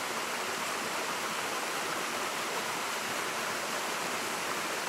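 Steady rushing of water falling down a small forest waterfall, about 20 to 30 feet high, into a pool.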